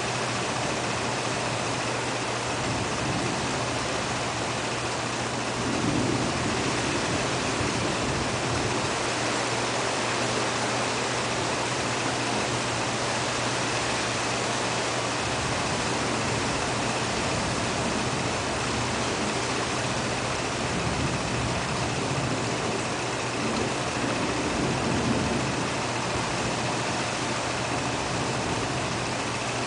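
Heavy rain falling steadily in a thunderstorm, an even rushing hiss with two brief swells, about six seconds in and near the end.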